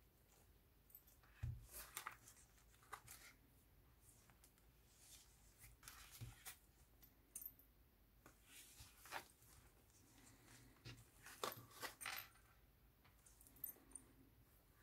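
Faint handling noise from a fabric-covered junk journal being turned over and opened: sewn-on buttons and beads clicking together and cloth and paper rustling, in scattered bursts, with a soft thump about a second and a half in.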